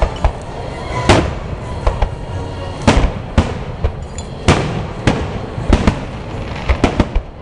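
Aerial fireworks shells bursting, a sharp bang every second or so, with several quick bangs close together near the end.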